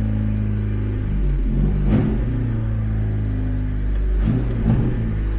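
1998 Honda Civic hatchback's four-cylinder engine running steadily, with two brief rises in revs, about a second in and again near the end.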